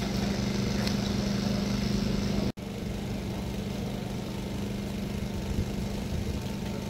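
A steady mechanical hum, like a small engine running. It drops out sharply for an instant about two and a half seconds in, then carries on slightly quieter.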